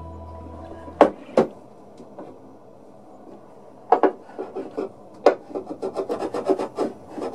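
Wood being worked by hand: two sharp knocks of wood on wood about a second in, a few more knocks, then a quick run of rubbing strokes on wood at about six a second toward the end.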